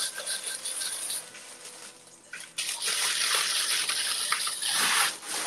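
Tissue paper rustling and crinkling as it is handled and unfolded, softer around two seconds in, then louder and denser until shortly before the end.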